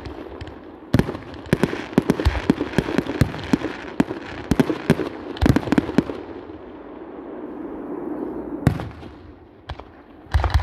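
Fireworks display: a quick series of sharp bangs and crackling from aerial shells bursting, packed densely through the first half. This gives way to a steady hiss with only a few more bangs near the end.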